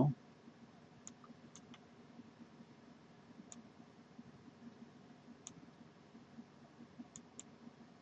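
Computer mouse button clicked about six times at irregular intervals, faint over quiet room tone, as the zoom-in control is pressed.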